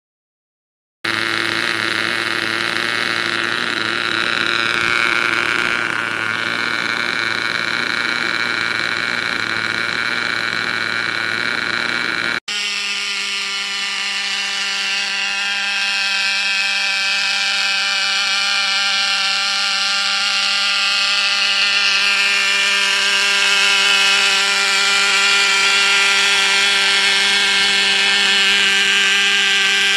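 Thunder Tiger .12 two-stroke nitro glow engine of a G-scale live diesel-electric locomotive running steadily at a high pitch on its first firing and test run. It starts about a second in, with a momentary break about twelve seconds in.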